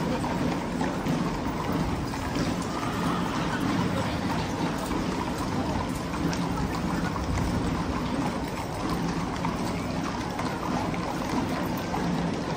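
Steady outdoor street noise: a crowd murmuring over a low rumble, with horses' hooves clopping on the paved street.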